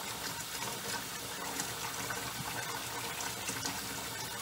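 Tap water running steadily from a faucet into a utility sink that is filling with soapy water.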